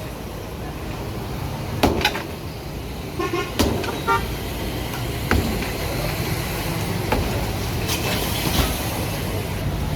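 Road traffic running past, with a car horn tooting in short beeps about three to four seconds in and a few sharp knocks.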